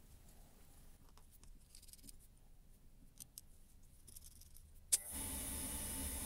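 Small steel parts of a band clamp (screw, nut and washers) clicking and clinking faintly as fingers fit them together. A sharp click comes about five seconds in, followed at once by a steady hiss.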